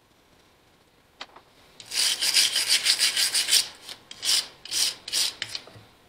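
Emery cloth scrubbing the pitted contact stud of a starter switch: a quick run of rapid rubbing strokes about two seconds in, then a few slower, separate strokes.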